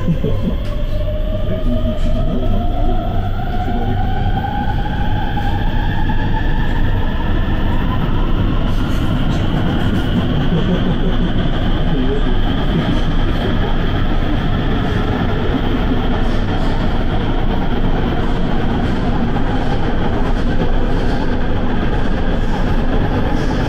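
Electric passenger train picking up speed: the traction motors whine in several tones that rise in pitch over the first eight seconds or so, then hold steady over a constant rumble of the train running on the rails.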